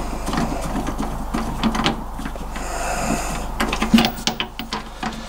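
Socket ratchet clicking in short runs, with metallic clinks, as the damper's mounting bolts are wound in loosely. A brief held whine comes about two and a half seconds in.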